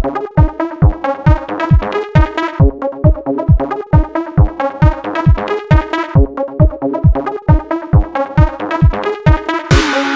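Electronic dance music with a steady kick drum a little over twice a second under synth notes, and a rising whoosh coming in near the end.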